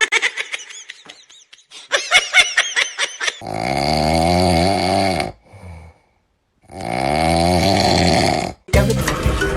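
A pet snoring: two long, loud rattling snores with a pause between them, after a flurry of short high-pitched chirps.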